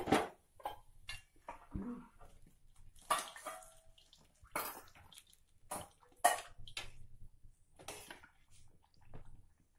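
Fried chhanar jilipi dropped into sugar syrup in an aluminium pan and moved about with a metal spoon: scattered splashes of syrup and spoon knocks on the pan, a dozen or so short sounds with gaps between.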